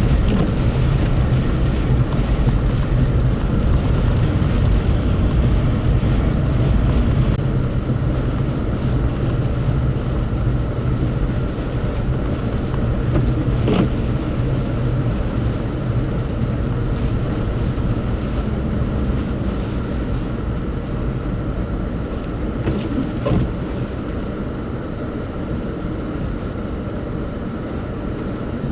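Vehicle driving through a blizzard: a steady low engine and road rumble with a hiss of wind, easing a little toward the end, with a couple of faint clicks.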